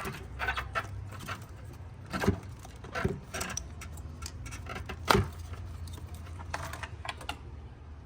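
Air intake tube being worked loose and pulled out of an engine bay by hand: scattered clicks, rattles and knocks of plastic and metal parts, with one louder knock about five seconds in.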